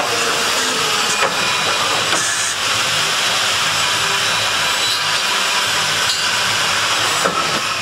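Graf Synergy WP CNC 4 four-axis corner-cleaning machine for window sashes running: a steady hiss of machining and compressed air, with a few sharp clicks from its pneumatic cylinders.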